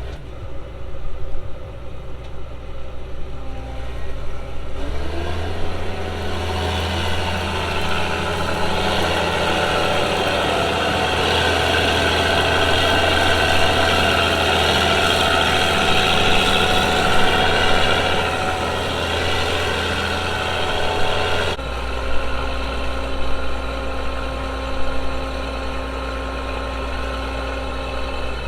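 Combine's diesel engine running. It speeds up about five seconds in and holds at a higher speed with a steady whine over it. Near the end it changes suddenly to a lower, steadier running sound.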